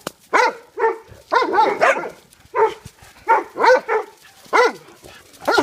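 Dogs barking: a run of about ten short barks, roughly two a second, some overlapping.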